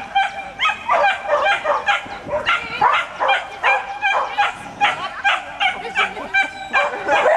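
Dog barking over and over while running an agility course, about three short, high barks a second.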